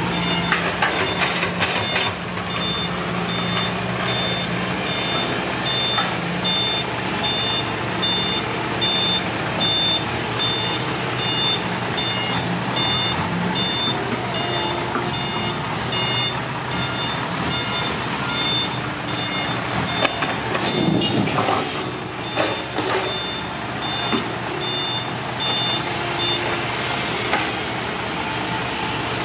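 Reversing alarm on a Hino six-wheel dump truck beeping at an even pace over the truck's running diesel engine, then stopping near the end as the truck pulls forward. About two-thirds of the way through there is a short, louder burst of rough noise.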